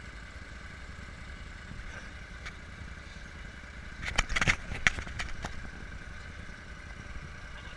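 Small off-road vehicle running with a steady whine and low rumble, with a burst of clattering knocks about four seconds in.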